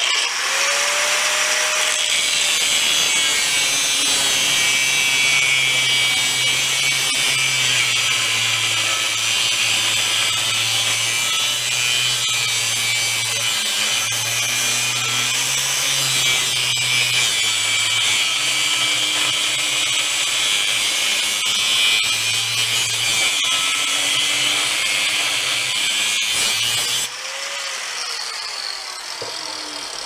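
Corded angle grinder spinning up and grinding the end of a long steel rod held in a bench vise, running steadily under load. It switches off about 27 seconds in and winds down with a falling whine.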